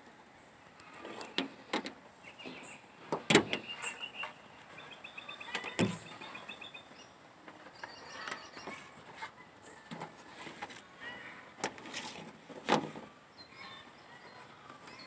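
Scattered clicks and knocks from handling multimeter test leads, an alligator clip and the coil wires, the loudest a sharp knock about three seconds in. Birds chirp in the background, short repeated notes mostly in the first half.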